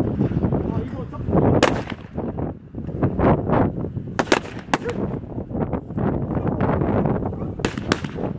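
Six sharp pistol shots: one about a second and a half in, a quick group of three around four seconds, and two close together near the end, over low wind buffeting on the microphone.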